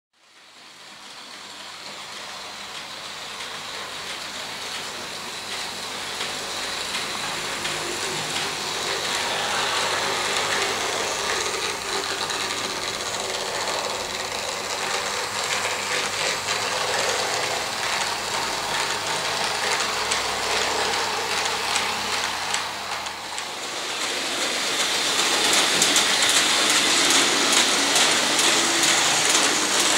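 Märklin model trains running on metal track: a steady whirring rattle of small motors and wheels that fades in over the first couple of seconds. After a short dip about 23 seconds in, the sound is louder, with dense clicking of wheels over the rail joints.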